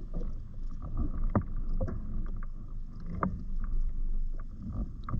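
Wind buffeting the microphone on a kayak at sea, with water lapping at the hull and a few sharp knocks, the clearest about a second and a half in and again past three seconds.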